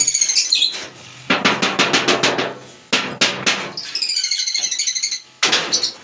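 Small aviary birds chirping in quick high runs, near the start and again later, over a fast rattle of seed and husks being shaken on a tray.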